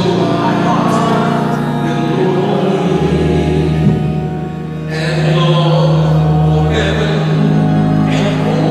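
A man singing a gospel song into a microphone over sustained instrumental chords.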